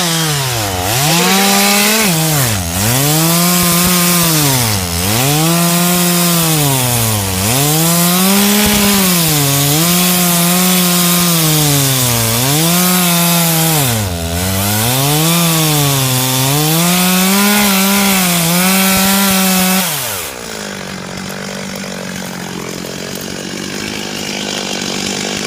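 Chainsaw making the felling cut through a large tree trunk at full throttle. Its pitch dips and recovers about every two seconds as the chain bogs under load in the wood. About twenty seconds in it drops back to idle.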